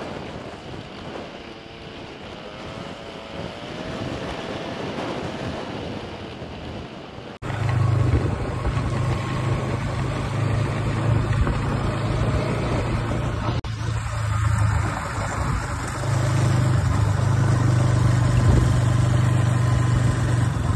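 Motorcycle engine running while riding, with wind buffeting the microphone. About seven seconds in, the sound cuts abruptly to a louder, deeper, steady engine drone.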